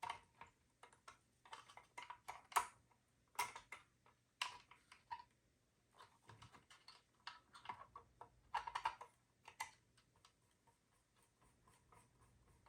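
Small M2 screws being started into a plastic RC truck bumper and swing-out with a small driver: faint, irregular light clicks and ticks of the tool and the plastic parts being handled.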